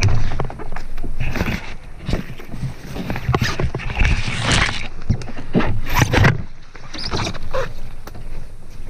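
Cedar branches and twigs scraping and rustling against a wet Gore-Tex rain jacket and the camera, with the rain gear swishing and a few knocks, as a canoeist pushes through overhanging boughs at the canoe's side.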